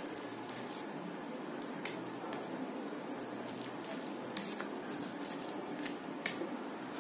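Fingers squishing and mixing soft boiled rice with dal and mashed potato on a plate: a soft wet squelch with a few small, sharp clicks scattered through it.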